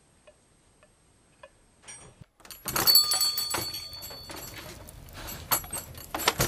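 Faint clicks at a door, then about two and a half seconds in the shop door swings open and a bell on it jangles and rings on for a second or two. A few sharp knocks come near the end.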